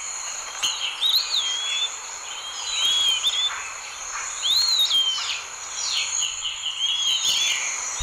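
Eastern wood-pewee singing: about four clear, slurred whistled phrases, one every two seconds or so, over a steady high-pitched background tone.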